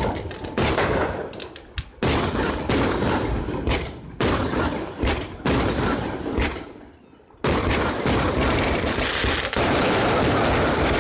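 Fireworks exploding: a quick, irregular run of loud bangs, each dying away, then about two-thirds through a dense, continuous barrage sets in.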